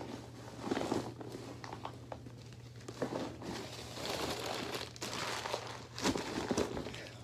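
Plastic bin liner and papers rustling and crinkling in irregular bursts as papers are pushed down into a small lined trash can; the loudest crinkle comes about six seconds in.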